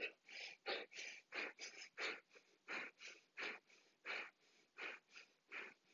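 Breath of fire: quick, forceful exhales through the nose at an even pace, about three a second, each driven by a snap of the navel toward the spine. The puffs are faint.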